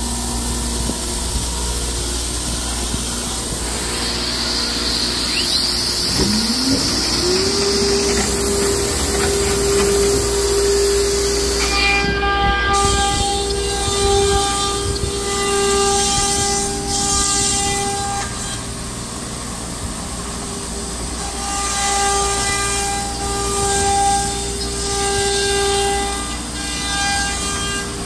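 CNC router running with its vacuum hold-down pump going steadily. About six seconds in, the spindle spins up to a steady whine, and from about halfway further whining tones start and stop as the machine works.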